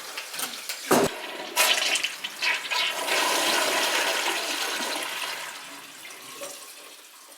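Toilet flushing: a click of the handle about a second in, then water rushing out of the tank into the bowl, loudest in the middle and fading away near the end.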